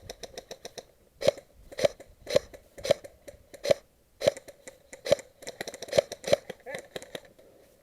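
Airsoft gun firing: a rapid full-auto burst that stops just under a second in, then a string of single shots about half a second apart.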